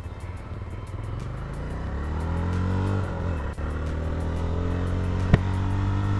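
Jawa 42 FJ's single-cylinder engine pulling under way, its pitch climbing as the bike accelerates, a brief break about three and a half seconds in, then running steadily. A single sharp click near the end.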